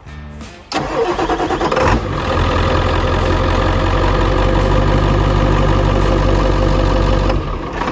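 Ford 7.3 L PowerStroke turbo-diesel V8, fitted with a 4-inch exhaust, cranking for about a second and firing, then running steadily: the engine starts. The sound eases slightly near the end.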